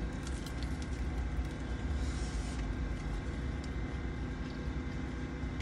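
Steady low hum of a car idling, heard from inside the cabin. Over it come faint crunches and clicks of someone biting and chewing a fried egg roll.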